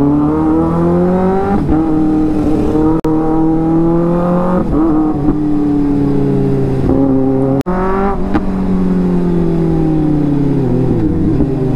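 Kawasaki ZX-6R's inline-four engine heard from the rider's seat through a loud aftermarket exhaust with the dB killer removed, pulling up through the gears: the pitch climbs and drops back in steps, then falls away as the bike slows near the end.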